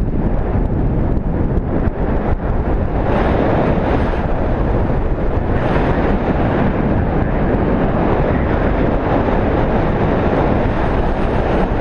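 Wind rushing over the microphone: a loud, steady rumble of airflow.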